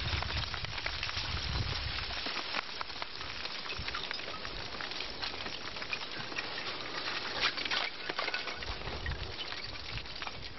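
Front of a slow-moving blocky lava flow advancing: a dense, continuous crackle and clinking of hot rock blocks cracking, grinding and tumbling, with a louder clatter about seven and a half seconds in. A low rumble underlies the first couple of seconds.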